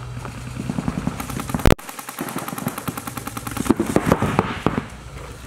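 Paintball markers firing strings of rapid shots, popping in quick succession, with a sudden break in the sound about two seconds in.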